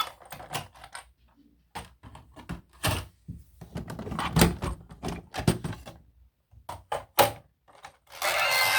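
Irregular clicks, taps and knocks of toys and packaging being handled, with short quiet gaps between them. Two sharper knocks stand out, one about halfway through and one near the end.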